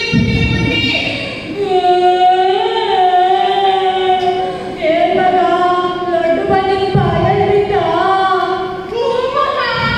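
A single voice singing a slow melody into a microphone and over loudspeakers, in long held notes that bend and waver in pitch.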